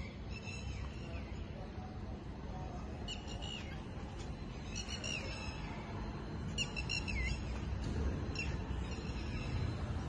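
A bird calling in about five short phrases, each a few quick notes sliding downward, over a steady low rumble.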